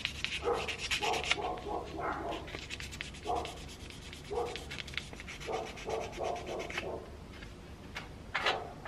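A dog yapping in short bursts, some in quick clusters, over the scratchy rubbing of mud-caked motor parts being handled.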